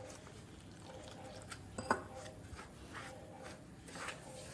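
Faint rubbing and squishing of a hand mixing pearl millet flour with water in a steel bowl, with one sharper click about two seconds in.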